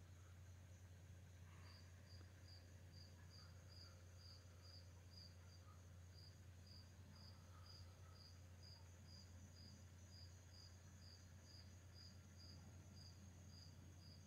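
Crickets chirping: a faint, high chirp repeating steadily about twice a second, over a continuous high-pitched insect trill.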